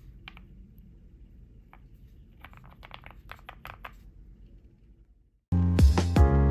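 Keystrokes on a QK65 custom mechanical keyboard with a POM plate, lubed Gateron CJ switches and GMK-style keycaps. There are a few scattered clicks, then a quick run of typing. About five seconds in, the typing stops and loud music starts.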